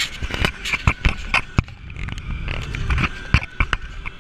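Handling noise from a GoPro being set on a car dashboard: irregular clicks and knocks of the camera and its mount, over the low rumble of the car driving.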